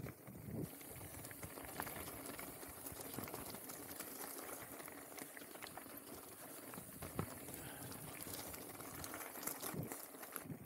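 Mountain bike riding down a rough trail: tyres rolling over loose gravel and rocks in a steady crackle, with many small clicks and a few louder knocks and rattles from the bike.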